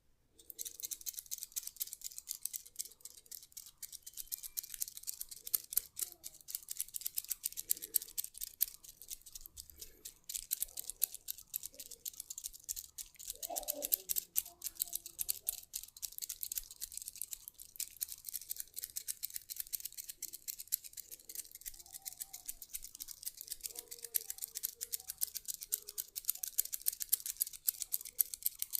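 Close, fine scratching of a massage tool worked over skin: a dense run of tiny crackling clicks with frequent sharper ticks.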